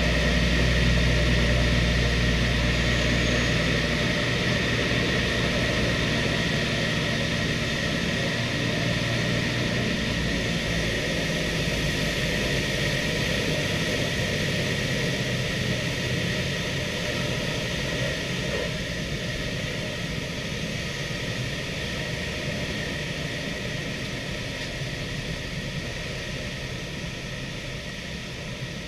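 Twin Wright R-2600 radial engines of a B-25 Mitchell bomber heard from inside the fuselage, running with propellers turning while the aircraft rolls along the runway. The deep engine drone is strongest in the first few seconds, and the overall sound slowly fades.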